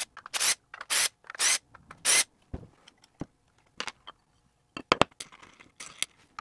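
Screws being taken out of a guitar pedal's 1590BB aluminium enclosure: four short, harsh bursts in the first two seconds. Then a few light metallic clicks about five seconds in as the bottom plate comes off.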